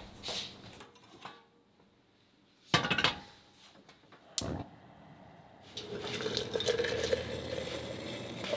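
Kitchen clatter, a loud short burst about three seconds in and a sharp click a second and a half later. Then, from about six seconds in, hot water poured steadily from a stainless steel kettle into a glass mason jar.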